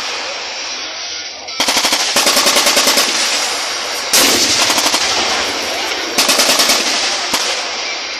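Bursts of automatic machine-gun fire, fast strings of shots: a long burst starting about a second and a half in, then shorter bursts around four and six seconds in, and a single shot near the end.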